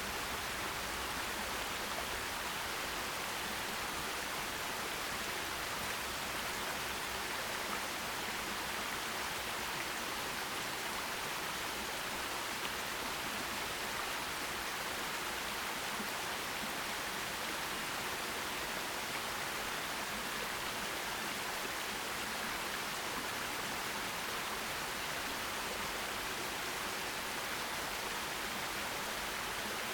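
Forest stream running over rocks: a steady, even rush of water with no change in level.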